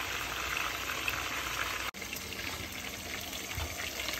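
Whitefish pieces frying in hot oil in a pot: a steady sizzle with fine crackling, cutting out for an instant about two seconds in.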